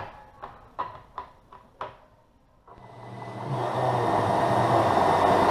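About six light knocks as the plywood table is set onto its slides, then a Hitachi cordless drill spins the mill's lead screw, a steady mechanical running noise with a low hum that starts a little past halfway and builds steadily louder.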